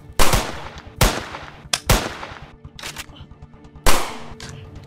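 Four sharp gunshot-like bangs, each with a short fading tail: three about a second apart, then a last one near the end. The first and last are the loudest.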